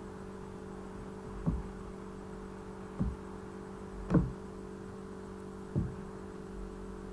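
Four soft knocks, spaced about a second or a second and a half apart, over a steady low hum.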